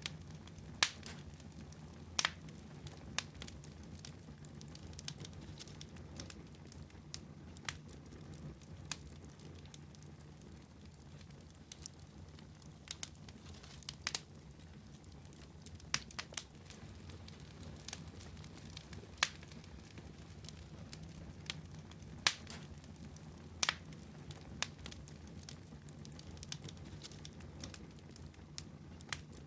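Wood fire crackling in a fireplace: scattered sharp pops every second or two over a steady low background.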